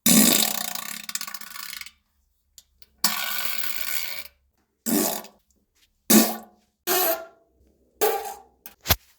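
A series of seven farts: a long one of about two seconds, a second of just over a second, four short ones, and a brief sharp pop near the end.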